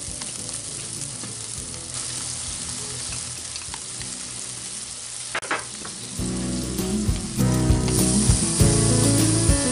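Chicken skewers brushed with sweet chili sauce sizzling on a hot cast-iron grate over charcoal, a steady hiss. From about six seconds in it gets louder, with knocks and scraping as the skewers are turned on the grate.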